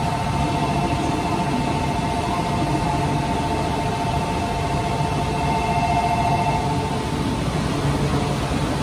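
Shinkansen platform departure bell ringing in a steady two-tone trill over the low hum of a stationary E4 series Max train. The bell stops about seven seconds in.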